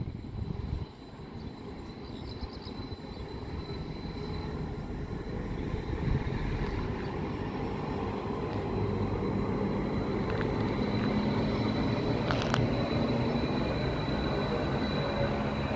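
A train approaching along the track, its rumble growing steadily louder, with one short sharp click late on.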